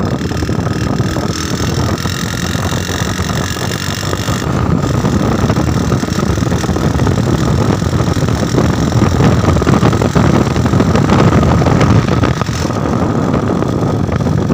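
Motorcycle engine running steadily and loud close to the microphone.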